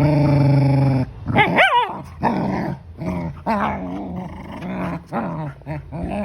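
Dogs growling and yipping in rough play: a long steady growl, then a sharp yelp that swoops up and down about a second and a half in, followed by many shorter growls and whines.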